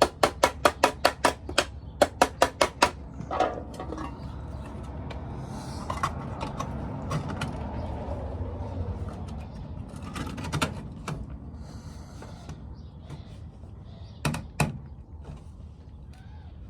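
Hammer tapping a metal license plate to bend it: a quick run of about a dozen sharp blows, around five a second, in the first three seconds, then a stretch of scraping and handling noise and a few scattered knocks later on.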